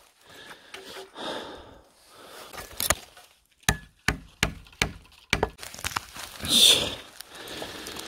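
A blade prying and chopping a large, hard sanghwang (Phellinus) bracket fungus off a tree trunk: a series of sharp cracks and knocks starting about three seconds in, then a louder crunching break about two-thirds of the way through.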